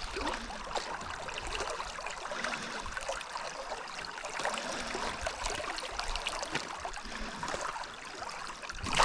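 River water trickling and lapping, with small faint splashes, as a big fish is held in the water to recover before release.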